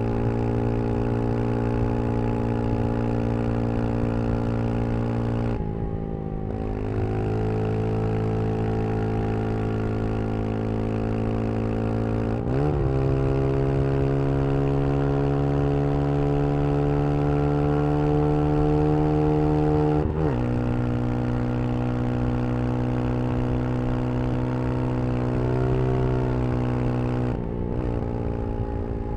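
Brixton Crossfire 125 XS single-cylinder engine pulling the bike along at steady revs, with short breaks and jumps in pitch about four times as the rider changes gear, and a slow climb in revs in between.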